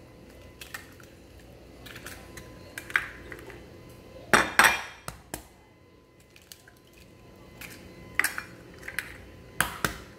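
Eggs being cracked open one after another: scattered sharp taps and cracks of shell with light clinks, the loudest cluster of knocks about four and a half seconds in.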